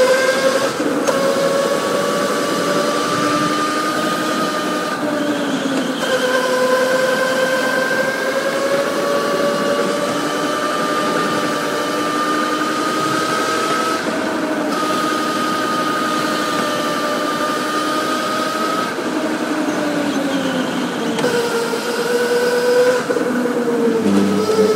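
Electric go-kart motor whining, its pitch gliding up and down with speed every few seconds, over a steady rushing noise.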